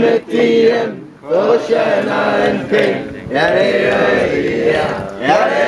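A group of men singing together in unison, a team song in phrases of held notes with short breaks between them, recorded by a football club's first team.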